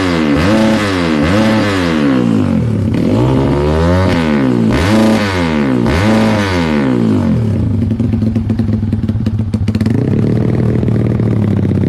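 Trail motorcycle with a Norifumi Gridz competition exhaust being revved: a run of quick throttle blips, then three longer revs, then settling to a steady idle for the second half.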